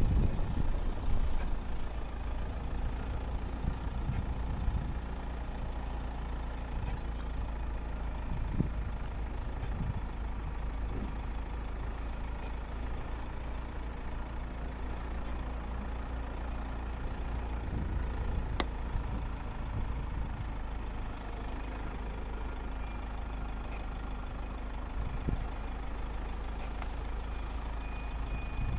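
Vehicle engine and road noise while driving: a steady low rumble with a faint engine hum, and a few short high squeaks now and then.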